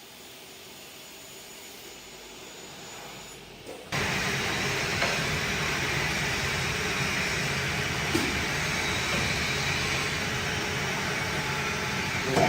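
Steady whirring machine noise from a double-head aluminium cutting saw running, starting abruptly about four seconds in after a low hush.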